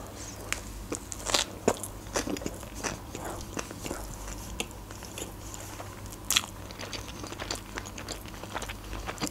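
Close-miked chewing of a mouthful of sushi roll: irregular crunches and small wet mouth clicks.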